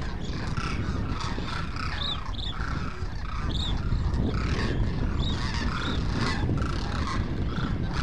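A flock of demoiselle cranes calling, many short overlapping calls one after another, over a steady low rumble.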